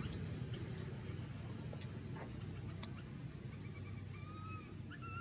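Baby macaque calling: two short, high, slightly arching coos near the end, over a few faint scattered clicks and a low steady rumble.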